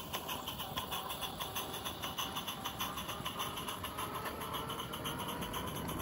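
Small live steam De Winton locomotive passing close by, its exhaust beating through a Summerlands Chuffer in quick, even chuffs, about five a second.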